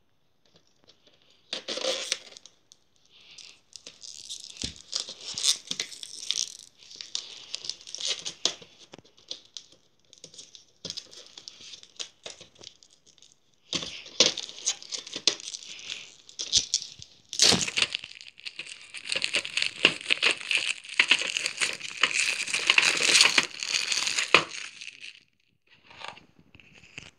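Packaging around a VHS tape being handled and pulled open: irregular crinkling, rustling and tearing, sparse at first and then a long dense stretch of crinkling over the second half.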